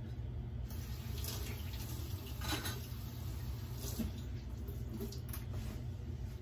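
Kitchen faucet running into a stainless-steel sink, turned on less than a second in, with a few splashes as hands work under the stream, over a steady low hum.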